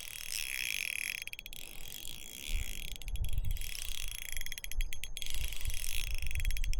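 Fishing reel being cranked to bring in a hooked fish, its gears giving a fast, fine ticking. Wind buffets the microphone in low gusts from about the middle on.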